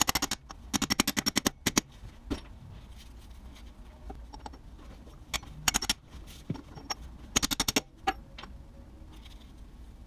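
New transmission output-flange seal being driven into its bore on an Audi 5000 Quattro with a metal seal driver, struck in runs of quick sharp metallic taps. The longest run comes in the first two seconds, shorter runs come just past the middle and about three quarters through, and a few single taps fall between.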